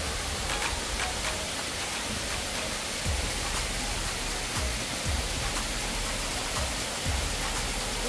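Steady rush of a waterfall and the stream cascading over rocks, with occasional faint low thumps.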